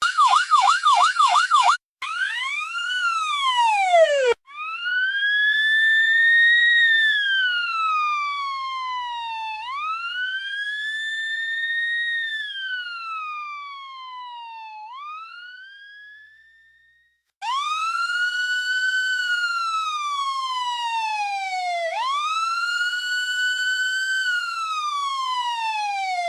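Fire truck siren: a fast warbling yelp for about two seconds, then a string of slow wails, each rising and then falling in pitch over about five seconds. It fades away about fifteen seconds in and, after a short gap, comes back with two more wails.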